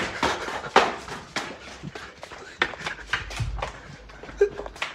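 Hurried footsteps, about two to three sharp steps a second, with a low rumble about three seconds in.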